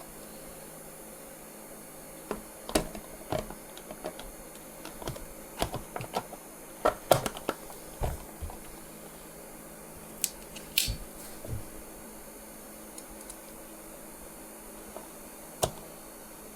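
Small screws and hand tools clicking and knocking in irregular taps during hands-on assembly work, busiest in the first two-thirds, with a single sharper knock near the end.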